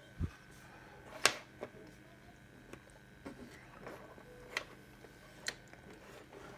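Scattered light clicks and taps of small electronic parts, wires and a hand tool being handled on a workbench, the loudest about a second in, over a faint steady tone.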